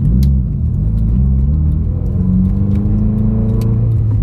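2020 Subaru WRX's turbocharged 2.0-litre flat-four running while driving, its note dipping and then climbing about halfway through as revs change. The engine has just logged a misfire on cylinder 1 and a vibration the driver doesn't like.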